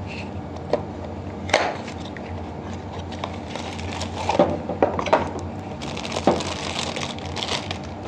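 A small cardboard box opened by hand and a pneumatic valve slid out of it: rustling and scraping of card with scattered sharp taps and clicks, busier in the second half.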